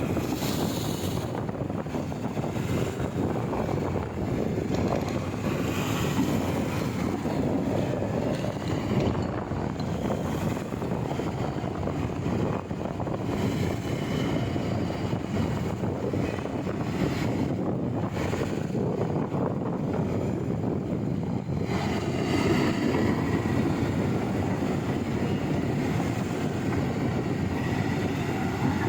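Kobelco excavator's diesel engine running steadily as the machine works through sea water, mixed with wind buffeting the microphone. The sound grows brighter and fuller a little past two-thirds of the way through.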